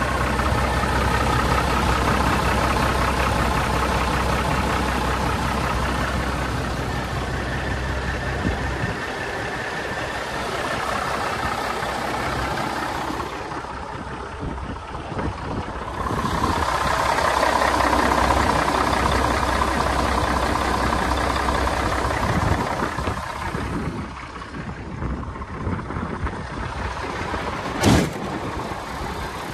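1981 Mack dump truck's turbocharged diesel engine idling steadily, with a deep rumble that is strongest near the start. There is a single sharp knock near the end.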